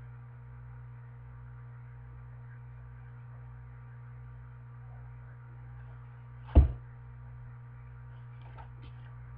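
Steady low electrical hum with no speech. About two-thirds of the way through, a single thump as the hardback picture book is handled and lowered from the camera.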